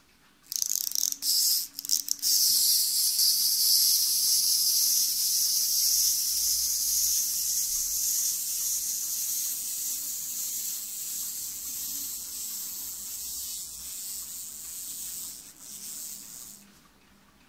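Clockwork wind-up motor of a toy giraffe puzzle kit running, a high, fast buzzing whirr as the walking mechanism turns. It starts about half a second in, with a couple of brief breaks early on, then runs steadily, fading gradually as the spring runs down, and stops near the end.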